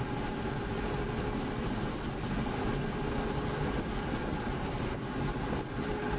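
Steady running noise inside a car's cabin: a low rumble with a steady, even hum over it.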